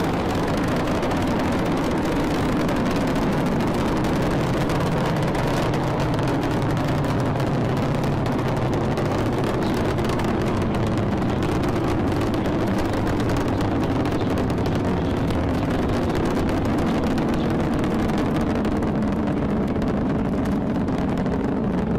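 Space Shuttle launch roar from its solid rocket boosters and main engines during ascent: a loud, steady rumbling noise, heaviest in the low end.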